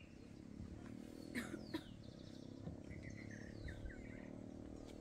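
Faint bird chirps and short calls, with two quick sweeping calls about a second and a half in, over a quiet low hum.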